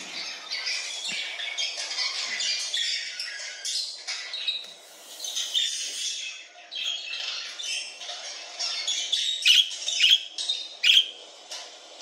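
Budgerigars chattering and warbling continuously, partly from a played-back recording of flock budgie sounds, with several sharp, loud chirps near the end.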